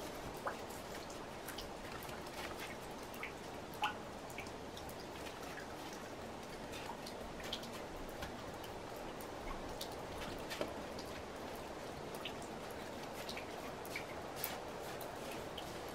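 Water dripping: scattered, irregular drip ticks over a steady soft hiss, the loudest drip about four seconds in.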